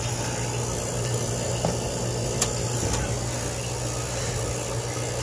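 Refrigeration vacuum pump running steadily, a low hum over a hiss, as it pulls a vacuum on an air-conditioning system. A single light click about two and a half seconds in.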